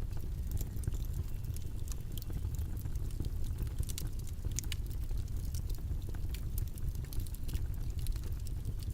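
Steady low-pitched white-noise track, a deep even rumble, with small scattered clicks and taps on top.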